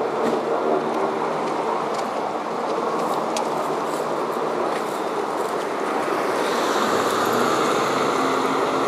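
Sikorsky UH-60A Black Hawk helicopter flying at a distance, its rotor and turbines making a steady drone that grows louder and brighter from about six and a half seconds in. A few faint clicks in the first half.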